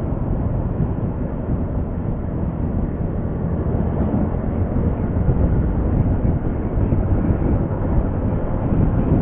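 Steady rush of wind and road noise from a motorcycle riding along, buffeting the on-board camera's microphone, with no clear engine tone.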